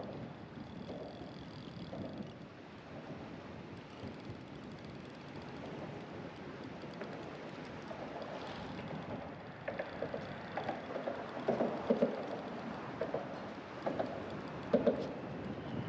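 Wind blowing across the microphone over a steady background rush, with short, louder gusts buffeting it in the second half.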